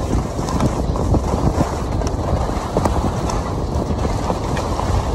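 Skis scraping and chattering over firm, chopped-up snow while skiing downhill: a continuous rough rumble with many small irregular clacks and knocks.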